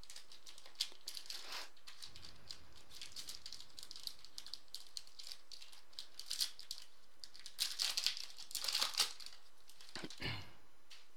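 Foil trading-card pack wrapper of a 2015 Panini Crown Royale football pack crinkling and tearing as it is opened by hand, with the cards rustling as they are slid out. It is a run of crackly rustles, loudest about two-thirds of the way through.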